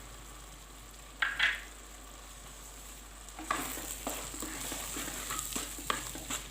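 Tomato-and-spice masala frying in oil in a pan with a low steady sizzle. There is one short scrape about a second in, then from about halfway a spoon stirring and scraping through the masala, with the sizzle louder.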